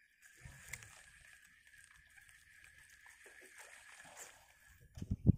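A steady high-pitched insect drone with faint water sounds, then a few loud low thumps near the end.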